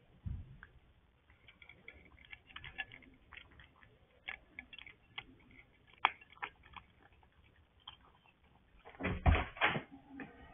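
A cat crunching dry kibble from a bowl: quick, irregular clicks and crunches. About nine seconds in comes a short, louder run of knocks as the cat moves off from the bowl.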